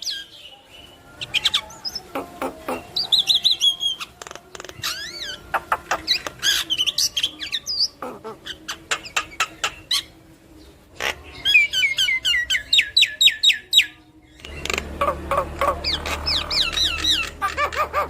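Javan myna singing a fast, varied jumble of rising and falling whistles, rapid clicks and short squawks, getting busier in the last few seconds over a low hum.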